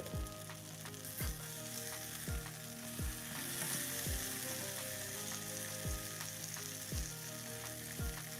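Reuben sandwich on rye bread frying in a hot pan, a steady sizzle and crackle as it toasts, with a soft low thump about once a second behind it.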